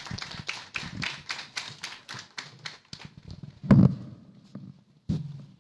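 A run of light, sharp taps, about four a second, then a loud thump a little past the middle and a second thump near the end.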